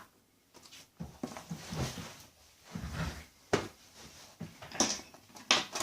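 Scattered handling noises from shipping containers being opened: soft rustling with a few sharp clicks and knocks, the sharpest about three and a half seconds in and a couple more near the end.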